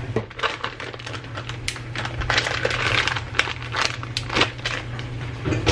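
Clear plastic bag crinkling and crackling as it is handled and wrapped around a loaf of wax, a quick irregular run of crackles that is busiest in the middle.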